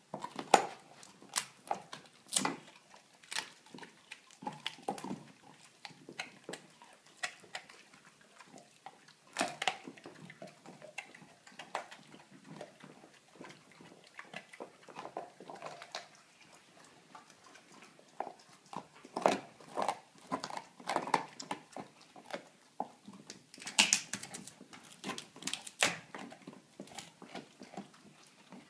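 Labrador chewing a veal leg bone: irregular sharp cracks and clicks of teeth on bone, loudest in quick runs in the second half.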